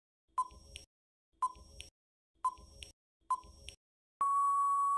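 Quiz countdown timer sound effect: four short tick-tock beeps about a second apart, then a steady, long beep of just under a second about four seconds in, as the time runs out.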